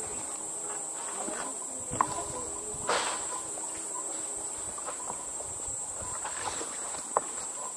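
Steady high-pitched buzz of rainforest insects, with a few sharp knocks of footsteps on the planks of a canopy suspension walkway.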